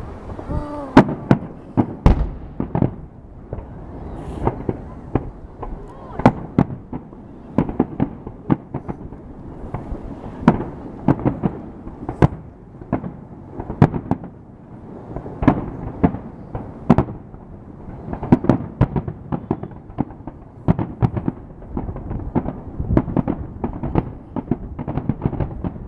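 New Year's Eve fireworks going off in a dense, irregular barrage of sharp bangs, several a second, with no let-up.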